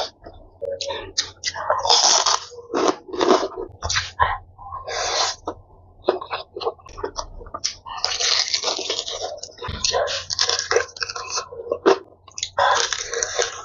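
Slurping and chewing of spicy instant noodles in a run of short, irregular wet bursts. Near the end comes a denser, crunchier stretch as a piece of fried chicken is bitten into.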